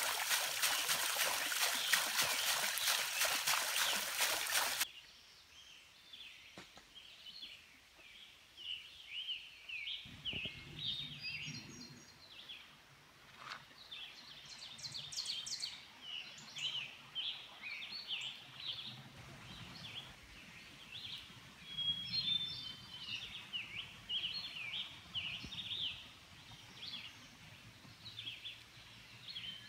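Water pouring from a wooden spout and splashing into a pool, cut off suddenly about five seconds in. After that, songbirds singing: many short chirps and trills, much quieter, over a faint low rumble.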